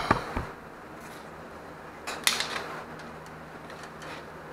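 Metal tools being handled: a few sharp clicks at the start and a short burst of clinking and rattling about two seconds in, like a socket and bolts knocking together, over a low steady hum.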